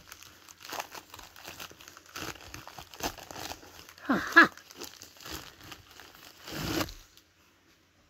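Plastic bubble mailer crinkling and tearing as it is pulled open by hand, in irregular rustles with a louder rip about two thirds of the way through. A short grunt-like vocal sound about halfway in.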